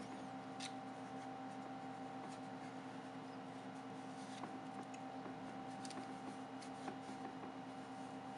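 Faint rubbing and handling sounds of fingers and a small cloth smoothing a carbon-fibre protective skin onto the back of a Samsung Galaxy S9, with a few soft clicks, over a steady hum.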